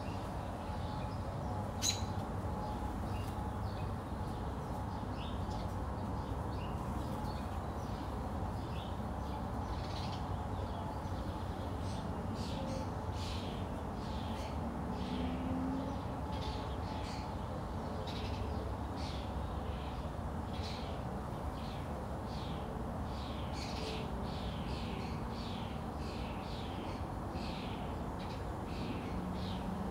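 Songbirds chirping in many short, quickly falling calls, sparse at first and dense from about ten seconds in, over a steady low background rumble. A single sharp click about two seconds in.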